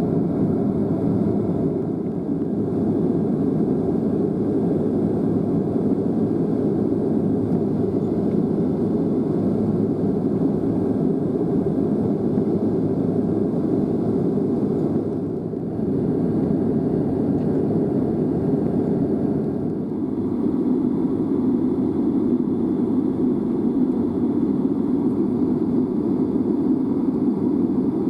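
Steady, even rumble of an airliner's cabin noise, with no distinct events.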